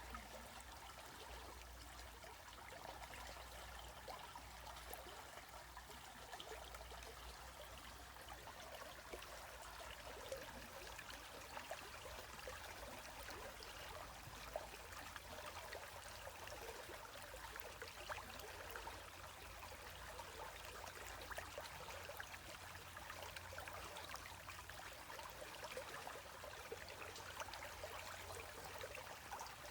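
Shallow stream of water running and trickling steadily over stones, a soft continuous burble with small splashes.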